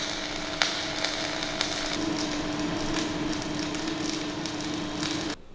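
MIG welder running on steel plate: a steady crackling arc hiss over the hum of the wire-feed motor, with a few sharp clicks. It stops suddenly near the end as the torch trigger is released.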